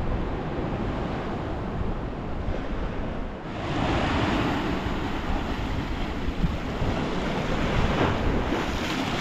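Black Sea surf washing onto the shore, with wind buffeting the microphone in a low rumble. About three and a half seconds in, a louder, hissier wash of waves sets in.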